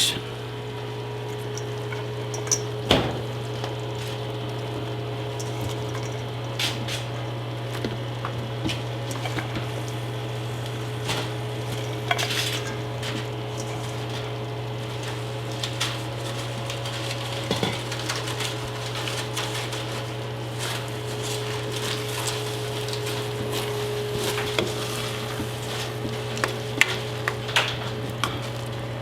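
Cooking utensil clinking and scraping against a pot as green beans are stirred into simmering kare-kare peanut sauce, with scattered sharp knocks over a steady low hum.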